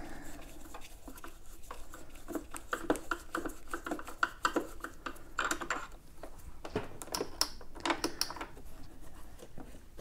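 Scattered small clicks, taps and scrapes as a screw is worked out of an electric unicycle's plastic shell by hand and with a screwdriver. There are short rattly bursts about halfway through and again near the end.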